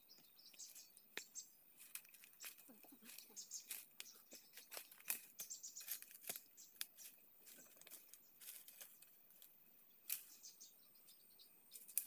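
Faint, irregular crackles and snaps of dry leaf litter and twigs underfoot: footsteps through forest undergrowth.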